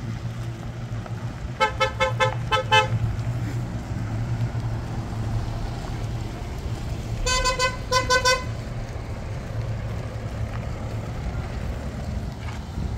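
A car horn tooting in two runs of rapid short beeps, about two seconds in and again about seven seconds in, over the steady drone of a running vehicle engine.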